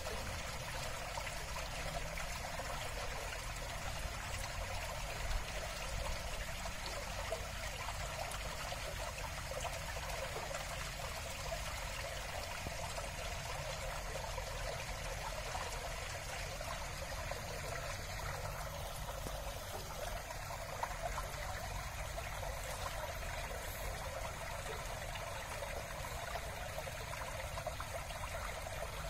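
Steady hiss of trickling, running water.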